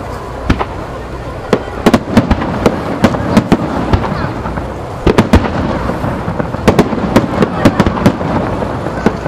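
Star mine fireworks barrage: shells bursting in quick irregular succession, dozens of sharp bangs over a continuous rumble, growing denser about a second and a half in.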